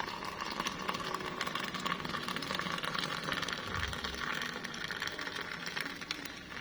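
Hot water pouring steadily into a glass, a continuous splashing trickle.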